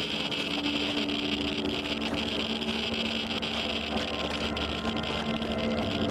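A Geiger counter crackling with dense, rapid clicks over a steady low hum.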